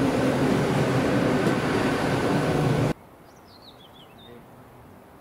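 Passenger train passing close by, a loud steady rolling noise that cuts off abruptly about three seconds in. Then quiet background with a bird chirping a short run of falling notes.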